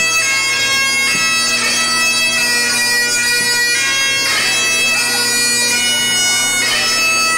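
Great Highland bagpipe playing a tune: the chanter's melody moves from note to note over the steady, unbroken hum of the drones.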